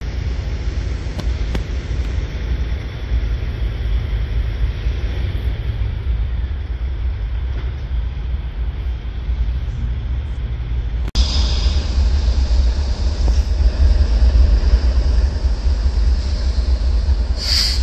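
Steady low outdoor rumble of traffic and rail-yard machinery, louder after a cut about eleven seconds in, with a short high hiss near the end.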